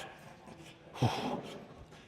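A man's loud strained grunt, falling in pitch, about a second in, trailing into a breathy exhale: the effort of pushing out a fast leg-press rep.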